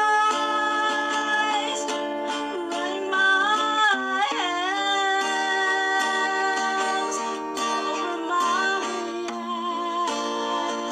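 Music: a voice singing long held notes that bend in pitch, over a repeating pattern of plucked string notes.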